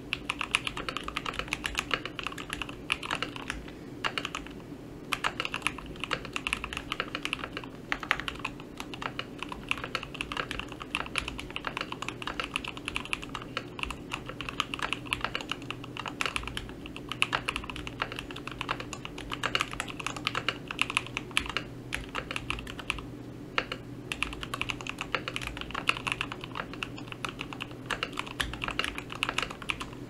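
Continuous fast typing on a KBD67 Lite R3 mechanical keyboard fitted with lubed Gateron Ink Black linear switches, a Darling switch on the space bar and Olivia-style keycaps, with short pauses now and then. A faint steady low hum runs underneath.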